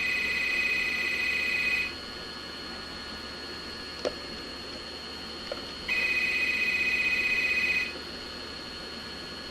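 A telephone ringing twice, each ring a trilling electronic tone about two seconds long, the second starting about six seconds in. A short click falls between the rings.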